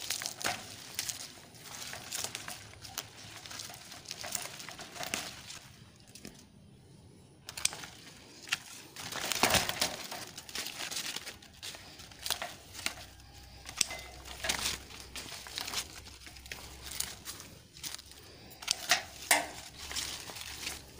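Grape leaves rustling and crinkling as they are pulled and torn off the vine by hand, in a run of irregular crackly bursts with a short lull partway through.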